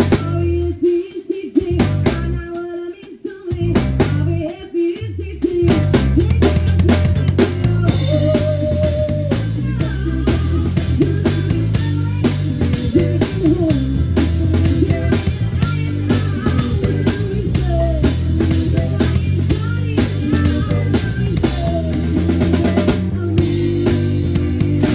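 Upbeat music with a steady drum-kit beat, bass line and melody; sparse and broken at first, then the full beat comes in about five seconds in.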